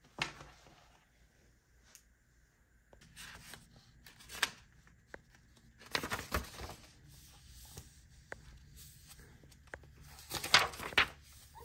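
Paper pages of a lined notebook rustling as they are turned and pressed flat by hand: several separate rustles, the loudest near the end.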